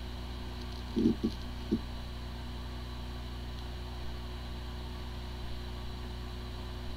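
Hard drive spinning with a steady hum, with a few brief seek sounds about a second in. It sounds like a healthy drive, yet it has corrupted disk firmware and the computer cannot detect it.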